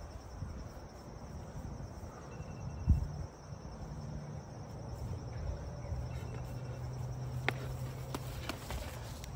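Insects chirping steadily in a thin, high, even pulse, with a single dull thump about three seconds in and a low steady hum through the middle.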